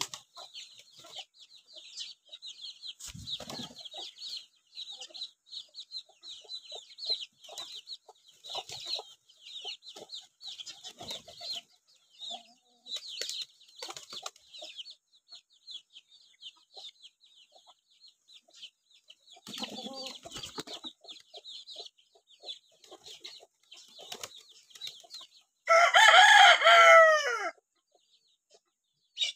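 Chickens clucking over a constant chatter of high-pitched chirps. Near the end a rooster crows once, loudly, for about two seconds.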